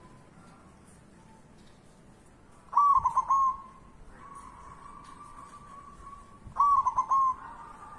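Zebra dove (perkutut) cooing: two loud phrases of quick, rolling notes about three and a half seconds apart, each trailing into a softer drawn-out tone.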